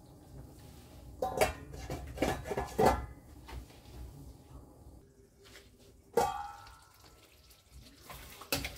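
Stainless steel frying pan and its metal lid clattering on a gas stove: a few clinks and knocks in the first few seconds, then one sharp clank with a short metallic ring about six seconds in.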